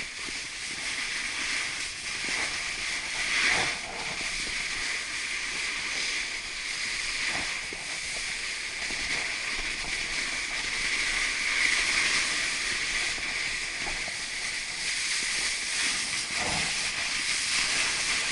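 Snowboard gliding and carving over packed snow, with wind rushing over the microphone: a steady hiss with a few louder scrapes.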